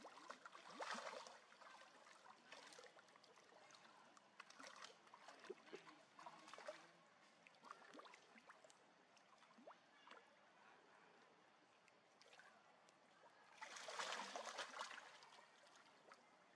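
Faint water splashing and trickling in a pool, in scattered bursts, with a longer, louder splash about fourteen seconds in.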